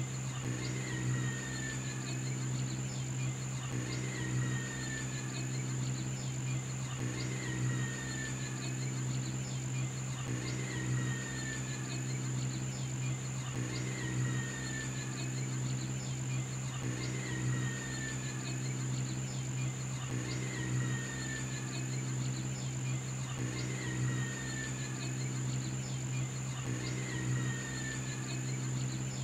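Steady high cricket-like chirring over a low hum, with a short falling whistle and a low tonal swell repeating evenly about every three seconds, like a looped nature-ambience track.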